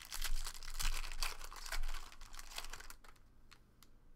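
Foil wrapper of a trading-card pack torn open and crinkled by hand for about three seconds, then it drops to a few light clicks.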